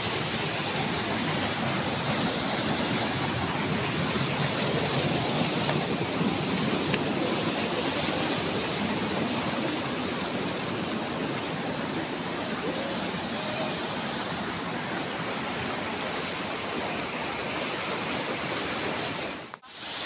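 Rushing river water pouring over rocks, a steady even rush.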